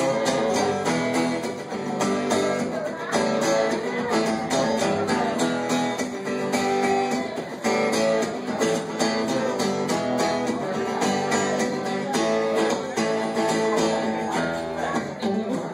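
Cutaway acoustic guitar strummed in a steady rhythm during an instrumental break, with no singing.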